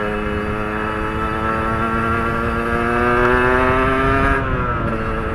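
Yamaha RXZ's single-cylinder two-stroke engine, breathing through an aftermarket under-belly exhaust, pulling under way. Its note climbs steadily for about four seconds, then falls away near the end.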